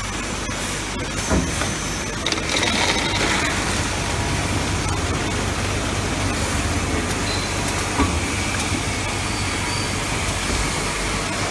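Automatic popcorn filling and can-sealing line running: a steady machine hum and rattle, with a few sharp knocks, one about a second in and one about eight seconds in.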